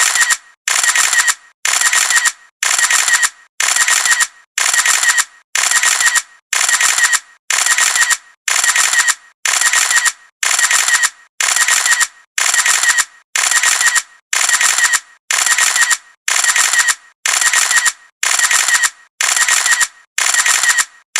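Photo camera's shutter-and-wind mechanism sound repeated over and over, about one every 0.8 s. Each repeat is a short mechanical whirr-click lasting about half a second.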